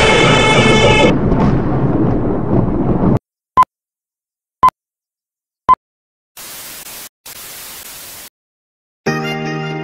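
Old-film countdown leader sound effect: three short, high electronic beeps about a second apart, followed by two bursts of static hiss. Before it, music cuts off about a second in and gives way to a couple of seconds of noise; near the end, intro music starts.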